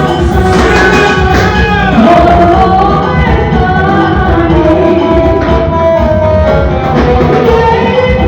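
Loud amplified live band music with singing: a held, wavering melody line over a steady accompaniment.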